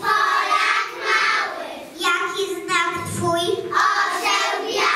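Young children singing a song together, in sung phrases with held notes and short breaks between lines.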